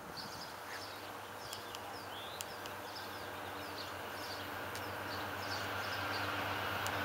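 Small birds chirping repeatedly over the low, steady hum of an approaching diesel passenger train, which grows gradually louder as it nears.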